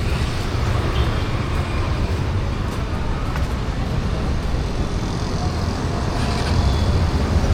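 Busy city street ambience: steady road traffic with a low rumble.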